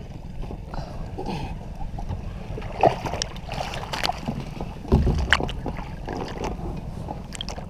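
Water splashing and sloshing as a hooked false albacore is brought up at the surface against an inflatable boat's tube, over a steady low rumble of water and wind. A louder thump about five seconds in.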